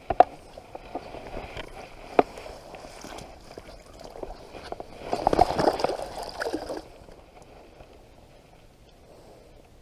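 Water splashing and sloshing, loudest for a couple of seconds past the middle, with a few sharp knocks before it.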